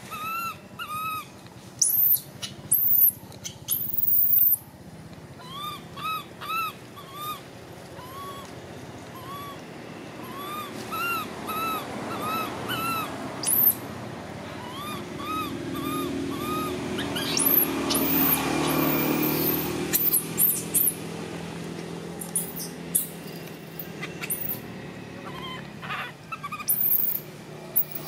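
Baby macaque calling over and over: runs of short arched coos broken by very shrill screams, the loudest in the first few seconds.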